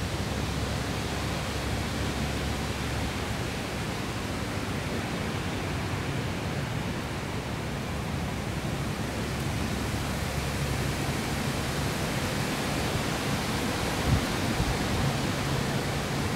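Steady rushing noise of wind and water, with a faint low drone from a fast survey boat's engine that becomes clearer near the end.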